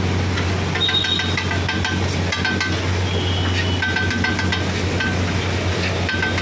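Steel spatulas clinking and scraping on a large iron tawa, with repeated sharp clicks and short metallic rings, over the hiss of butter chicken pieces sizzling on the griddle and a steady low hum.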